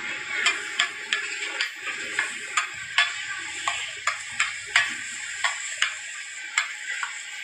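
Metal spatula clacking sharply and irregularly against a large flat griddle pan, about two strikes a second, as it chops a giant vegetable omelette into portions, over background music.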